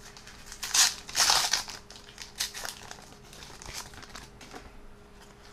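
A FIFA 365 2021 foil card sachet crinkling as it is torn open, loudest in a couple of bursts about a second in, then softer rustling of the wrapper and cards.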